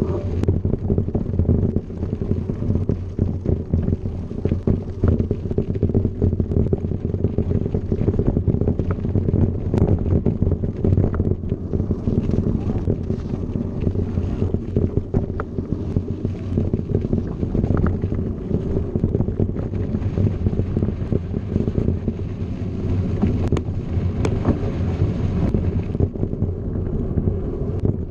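Wind buffeting and the steady rumble and rattle of a mountain bike rolling over a gravel road, heard through a camera riding on the moving bike, with many small clicks and knocks from the rough surface.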